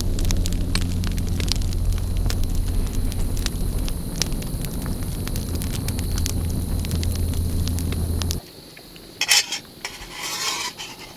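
Campfire crackling with many sharp pops, over a steady low rumble that cuts off suddenly about eight seconds in. A few quieter knocks and rustles follow.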